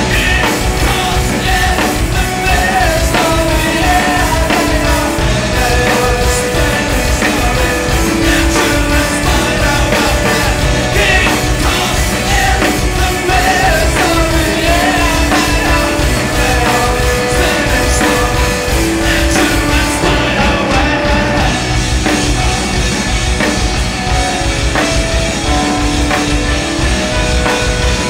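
Indie rock band playing live: a full band with a drum kit keeping a steady beat under sustained melodic lines.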